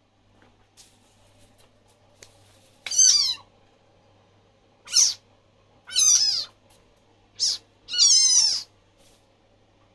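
A frog squeaking: five high, wavering cries, each under a second long, the first about three seconds in and the last two close together near the end.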